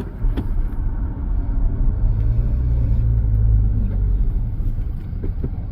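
Car on the move, a steady low rumble of road and engine noise heard from inside the cabin.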